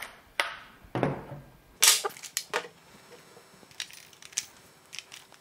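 Rechargeable AA batteries being handled and set down on a wooden tabletop during a battery swap: a string of sharp clicks and knocks. There are two louder knocks in the first second, a quick cluster of clicks around two seconds in, and a few lighter ticks later.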